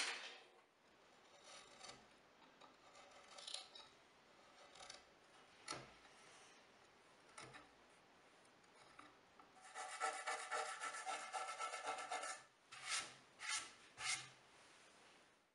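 Steel chisel scraping and picking at a knot and loose wood in a walnut slab, cleaning out soft spots: faint scratching strokes at first, a louder stretch of steady scraping about ten seconds in, then three short scrapes near the end.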